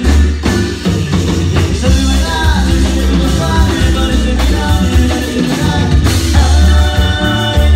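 Amplified cumbia band music: a heavy, steady bass beat under a melody line, with no sung words.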